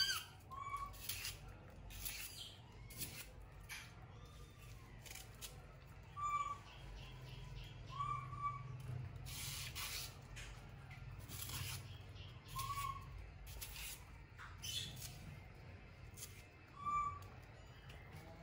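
A knife cutting and snapping crisp green vegetable stalks, a sharp crack every second or two. Short chirps come in between, about six of them.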